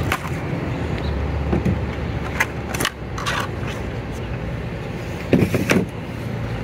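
Cardboard packaging rustling and scraping, with a few sharp clicks and knocks, as a small RC crawler truck is pulled out of its box insert, over a steady low hum.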